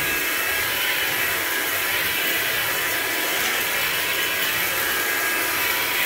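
Hoover Linx cordless stick vacuum running on a hard floor: a steady motor whine over rushing air.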